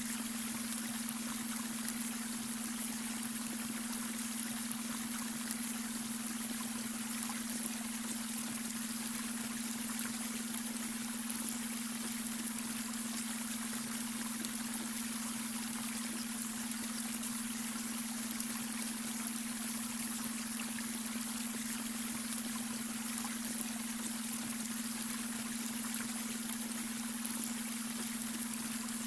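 Babbling brook running steadily, overlaid with a constant low beta-wave brainwave tone.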